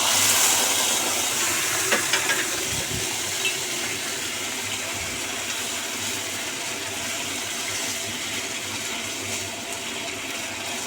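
Tomato sauce poured into a pan of hot oil and fried aromatics, sizzling sharply as it goes in and then settling into a steady sizzle, with a few clicks of a utensil on the pan about two seconds in.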